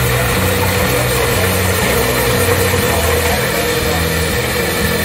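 Small steam traction engine running as it drives slowly past, with a steady low rhythmic beat under a constant hiss.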